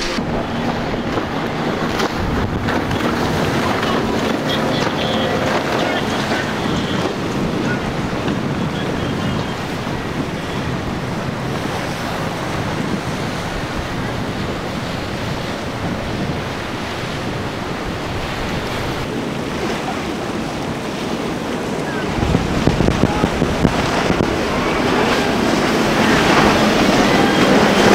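Waves washing and wind blowing across the microphone, with boat motors running under it; the sound grows louder about two-thirds of the way through as a boat comes closer.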